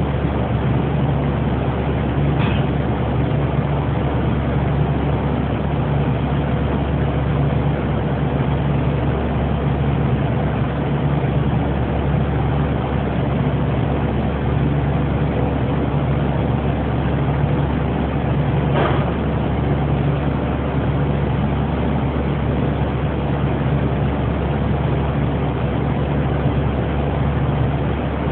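Steady machinery drone with a low hum throughout, broken by two brief sharp clicks: one about two and a half seconds in, the other just past the middle.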